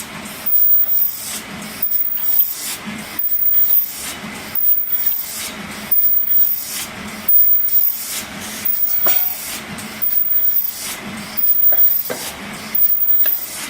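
Open-cam paper cup forming machine running 16 oz double-PE cups, a hissing, clattering cycle that repeats a little over once a second, about 50 cups a minute, with short mechanical knocks between the hissing swells.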